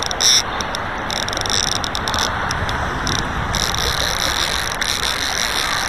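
A fly reel's click-and-pawl ratchet buzzing in spells while a hooked trout is played, the longest spell in the second half. Under it is the steady rush of river water.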